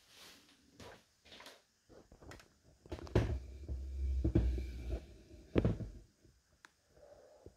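Objects being handled and set down: rustling and rubbing, then a run of knocks and clicks with a deep thump, loudest in the middle, fading near the end.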